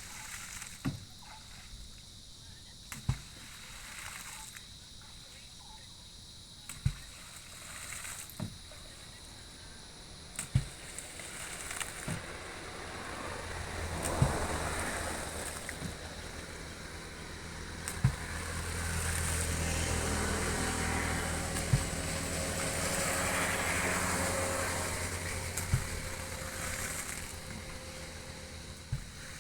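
Water sloshing and splashing around an oruwa outrigger canoe, with sharp knocks every few seconds. The water sound swells through the middle, with a low steady hum under it.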